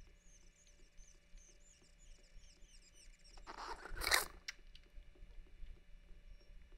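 A young kitten suckling at a feeding bottle: faint, quick high squeaks, about three or four a second, with the sucks in the first half. About halfway through there is a brief, louder rustling scrape as the hand shifts its grip on the bottle.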